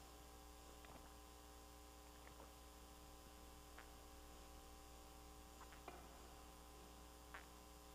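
Near silence: a steady electrical mains hum with a few faint, scattered ticks.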